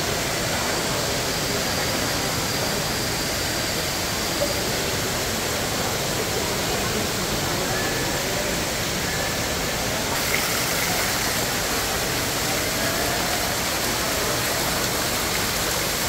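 Steady rush of splashing water from a fountain in the display. Faint voices of visitors mix in.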